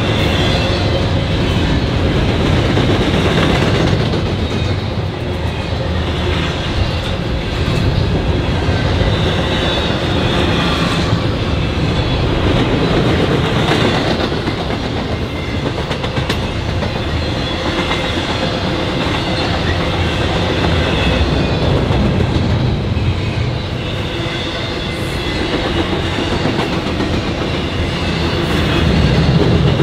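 Double-stack intermodal freight train passing at trackside: the steel wheels of its container-laden well cars rolling on the rails in a loud, steady rumble.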